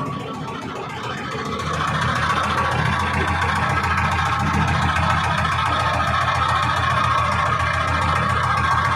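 Dongfeng R180 single-cylinder diesel engine running, getting louder about two seconds in and then holding a steady note.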